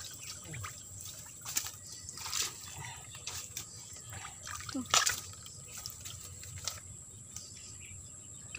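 Dry bamboo leaves and twigs crackling and rustling as someone moves through a bamboo clump, with scattered sharp snaps and knocks, the loudest about five seconds in.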